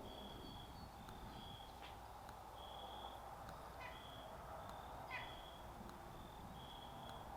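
Faint bird chirps: short high notes repeating irregularly, with a couple of quick rising chirps, over steady low outdoor background noise.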